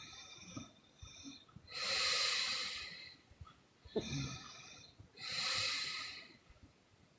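A sleeping woman breathing heavily: two loud puffing breaths of about a second each, with a short snort about four seconds in and quieter breathing between.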